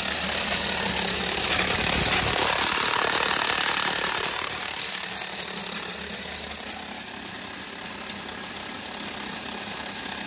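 Large rotary hammer driving a long bit into a cement-parged masonry house wall: a loud, rapid, steady hammering rattle that eases somewhat after about halfway.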